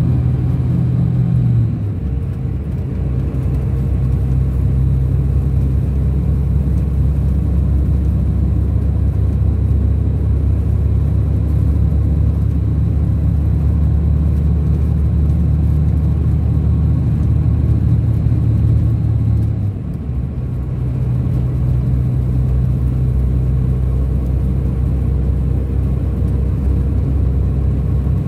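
Scania K400 coach's rear-mounted DC13 inline-six diesel running under way, heard from inside the coach. Its engine note steps down with a brief dip about two seconds in and changes again after a short dip near twenty seconds, as the automated Opticruise gearbox shifts.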